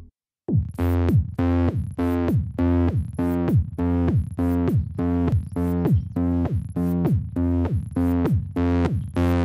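Electronic background music: a synthesizer riff with a drum-machine beat, pitched notes that drop in pitch repeating about twice a second, starting about half a second in.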